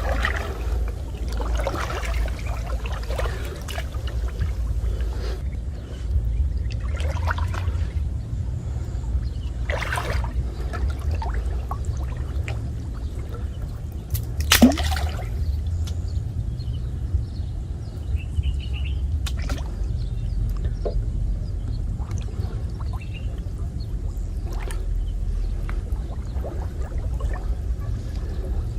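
Water pouring and trickling with scattered splashes over a steady low rumble, and one louder, sharper splash about halfway through.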